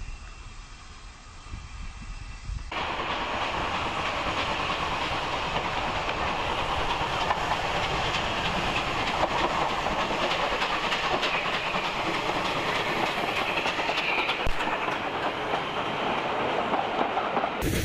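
Steam-hauled passenger train passing close by. About three seconds in, a steady loud rumble and clatter of wheels on rail sets in, with steam hissing, as the locomotive and its coaches go by.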